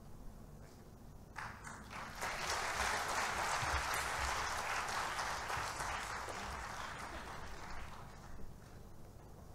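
Audience applauding. It starts about a second and a half in, swells quickly, then dies away near the end.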